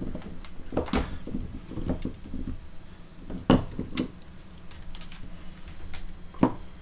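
Scattered clicks and knocks of multimeter test probes and wires being handled against the board's connector pins, with the sharpest knocks about halfway through and near the end.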